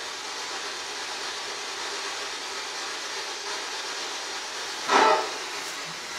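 Spirit box hissing with steady radio static as it sweeps through stations. About five seconds in, a short voice-like fragment comes through the static, which the investigators hear as the answer 'both'.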